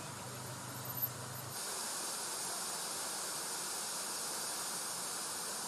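A steady hiss of background noise. A low hum stops about a second and a half in, and from there the hiss is brighter and steady.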